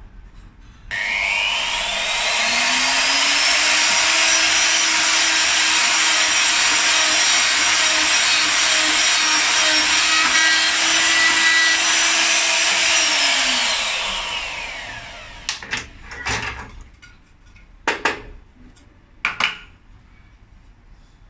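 Router motor of a slot-cutting (mortise-and-tenon) machine switching on about a second in, spinning up with a rising whine and running steadily at full speed as a small 8 mm bit cuts a slot in the wood, then winding down. After it stops come a few sharp clicks and knocks as the wooden workpiece is handled.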